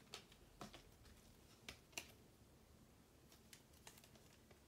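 Near silence broken by a few faint, sharp clicks of trading cards being handled and slipped into a plastic sleeve.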